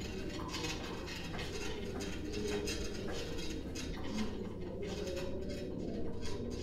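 Hospital-room ambience: light, scattered clinking and clattering of small hard objects over a steady low rumble.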